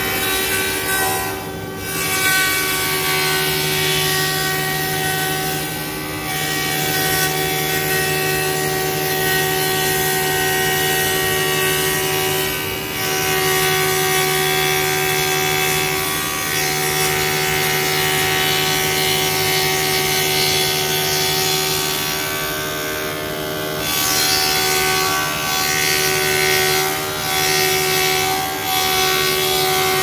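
Spindle moulder (wood shaper) running with a steady whine while a board is fed by hand along its fence past the cutter, which shapes the board's edge. The sound dips briefly a few times.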